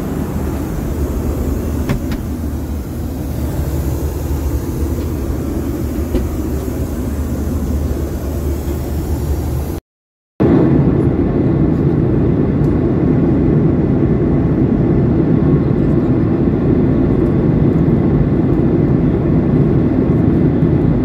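Steady cabin noise of a Boeing 737-800 in flight: a continuous roar of engines and airflow. In the first half it is heard inside the lavatory with a high hiss over it; about ten seconds in the sound drops out for half a second, then comes back as a louder low roar by the window seat.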